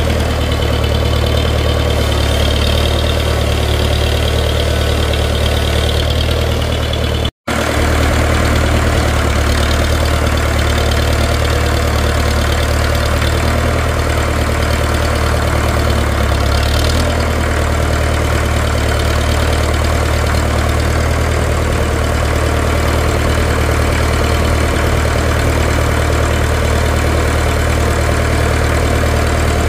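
International B275 tractor's four-cylinder diesel engine idling steadily, with a brief gap in the sound about seven seconds in.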